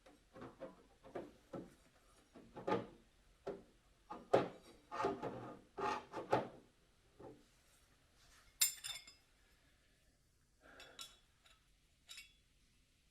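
Small aluminium bed-rack parts being handled and set against a plastic RC truck: a run of light, irregular taps and clinks for about seven seconds, one sharper click a little after eight seconds, then a few faint taps.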